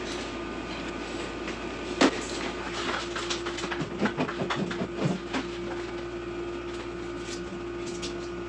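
Knocks, clicks and plastic rattling as a mini-split indoor head unit is lifted onto its wall bracket and its line set pushed through the wall, over a steady hum. One sharp knock comes about two seconds in, and a quick run of clatter follows a second later.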